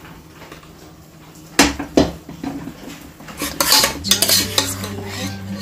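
Metal spoon knocking and scraping against a cooking pan as chicken is stirred into thick masala paste. Two sharp knocks come about one and a half seconds in, then a busy run of scraping and clinking from about three and a half seconds on, over a low steady hum.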